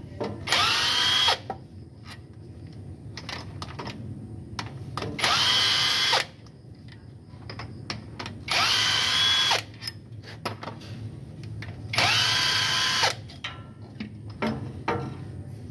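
A cordless power tool runs in four bursts of about a second each, its whine rising in pitch and then holding steady, as it spins off the bolts holding the engine's balancer shaft. Light clicks and knocks of tools fall between the bursts.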